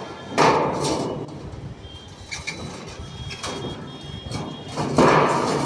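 Metal scraping and clattering, as of steel roofing sheets sliding against a steel frame: two rough scrapes about a second long, one just after the start and one near the end, with lighter knocks between.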